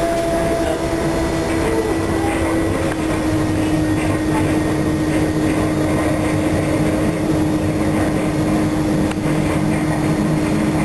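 Interior of a moving SEPTA Silverliner electric commuter railcar: a steady rumble of the car running on the rails, with a strong steady hum that slowly falls a little in pitch.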